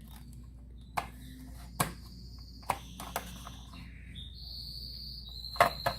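A knife cutting pineapple on a cutting board: about six irregular sharp knocks. A faint high steady tone comes in about four and a half seconds in.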